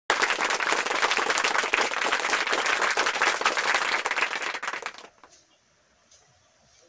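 Applause: many hands clapping densely, fading out about five seconds in, followed by near silence.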